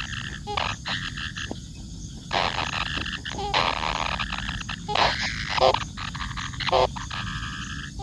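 Rapid, pulsed croaking calls go on throughout. Louder, harsh rasping bursts come about two and a half seconds in and again about five seconds in.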